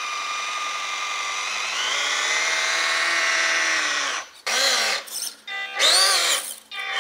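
Electric motor and plastic-geared transmission of a 1/18 scale RC truck running under a Tekin BXR speed control. It gives a steady whine that steps up in pitch about two seconds in, then a run of short throttle blips, each rising and falling in pitch, from about four seconds on. The high-pitched whine of the stock speed control is gone, leaving mainly motor and transmission sound.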